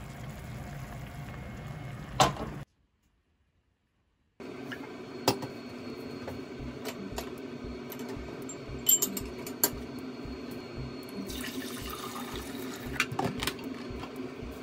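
Kitchen sounds: a pan simmering as beaten egg is poured in, with one sharp click. After a moment of silence come mugs and a plastic coffee dripper clinking on a steel counter over a steady hum, and a short rush of water near the end.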